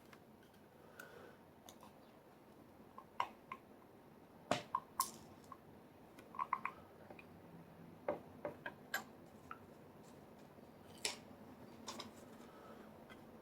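Irregular small metallic clicks and taps as the tiny driver pins and parts of a disassembled Schlage round-body padlock are taken out and set down, with one or two sharper taps.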